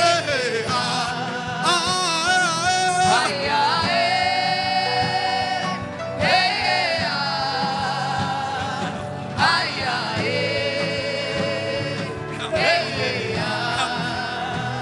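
Gospel worship music: a voice sings long, wavering held notes in phrases about every three seconds, over a steady instrumental accompaniment with a regular beat.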